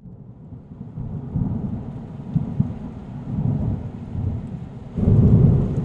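Thunder rumbling over rain, building in waves and swelling into a louder peal about five seconds in.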